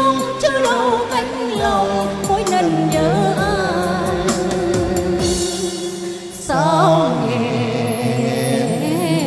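Backing music of a Vietnamese love-song duet playing an instrumental passage between sung lines, its lead melody wavering with vibrato. It turns louder about six and a half seconds in.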